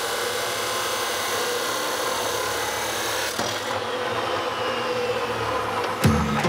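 Abrasive chop saw cutting through steel bar stock, a steady grinding run. About three and a half seconds in the cut ends and the motor's whine falls slowly as the disc spins down. Music with a beat comes in near the end.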